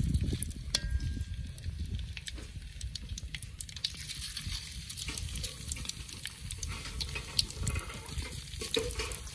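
Tofu frying in hot oil: a steady sizzle dotted with many small crackles and pops, over a low rumble.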